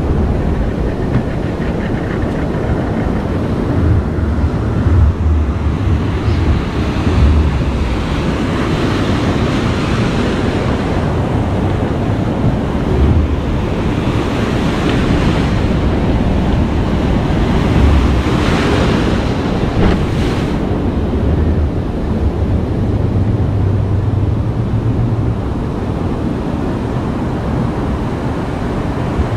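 Ocean surf breaking and foaming water washing around a kayak as it pushes out through the waves, with wind rumbling on the microphone. The hiss of breaking waves swells several times.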